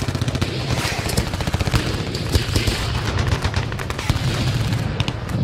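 Sound effect of rapid automatic machine-gun fire: a dense, unbroken rattle of shots over a low rumble.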